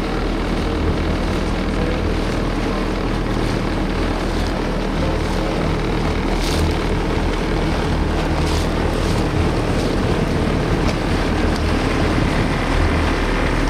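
Motorboat engine running steadily under way, a low even drone, over a steady hiss of water rushing along the hull.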